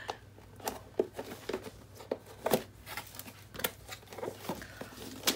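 Cardboard packaging of a diamond painting kit being handled and opened: irregular light clicks, scrapes and rustling.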